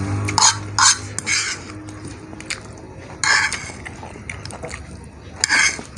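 Close-miked eating of saucy instant noodles with a fork: a few short slurps, about five in all, with small clicks of the fork against the bowl between them.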